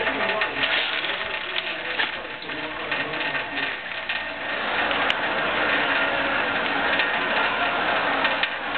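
Thin stream of tap water running into a stainless steel sink, with rapid small clicks and taps as a cat in a plastic cone collar drinks at the stream.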